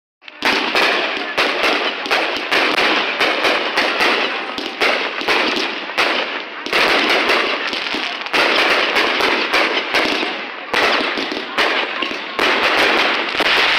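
Aerial fireworks display: a dense run of bangs and crackling, with sharp new reports every half second to second.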